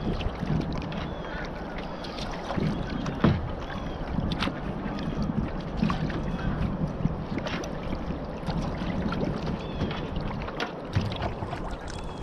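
Kayak being paddled: paddle strokes splashing and water sloshing along the hull, with a few sharp knocks scattered through.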